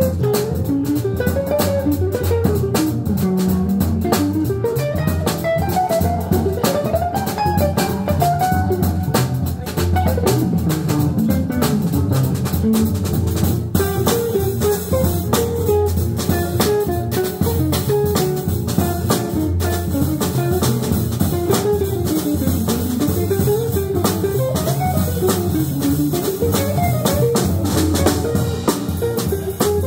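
Live jazz combo playing a blues: a jazz guitar runs a single-note solo line over plucked upright bass and a drum kit keeping time on the cymbals.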